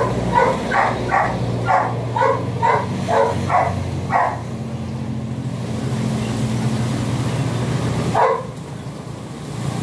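A dog barking in a quick run of about ten barks over four seconds, then one more bark near the end, over a steady low hum.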